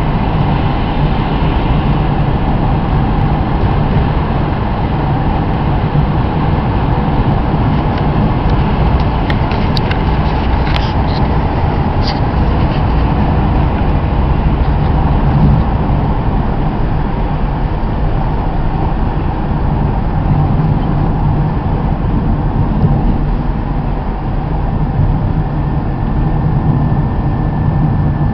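Steady engine and road noise from a vehicle on the move, a constant low rumble with a few brief high clicks near the middle.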